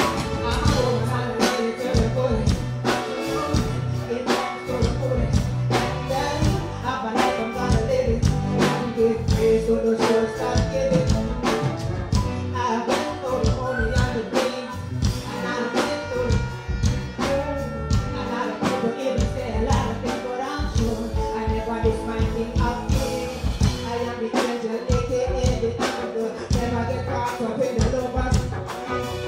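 Dancehall backing track with a steady beat playing loudly over a stage sound system, with a woman singing into a microphone over it.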